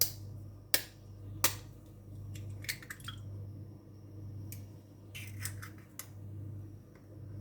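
Sharp clicks and taps, some single and some in quick clusters of three or four, over a low steady hum.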